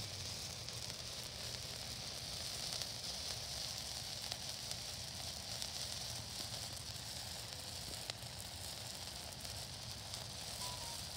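Ground-planted firework fountain burning, a steady hiss of spraying sparks with faint scattered crackles.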